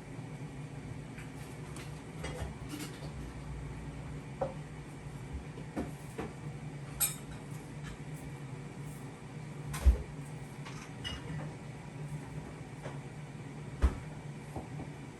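Small clicks and light knocks from a microscope being handled while a slide is scanned, over a steady low hum. Two sharper knocks come in the second half.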